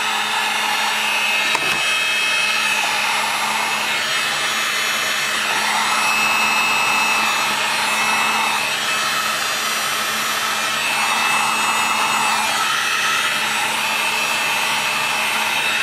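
Heat gun running, a steady blowing of hot air over a constant motor hum, swelling slightly every couple of seconds, as it shrinks heat-shrink tubing down over a pair of 2SA992 transistors.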